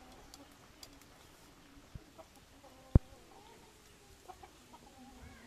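Chickens clucking faintly, in short pitched calls, with one sharp knock about three seconds in.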